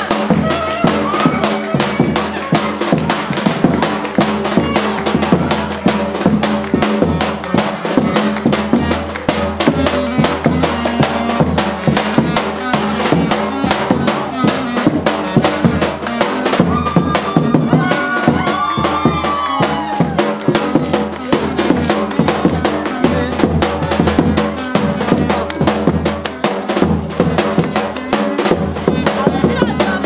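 Music with a fast, steady drum beat under a melody line.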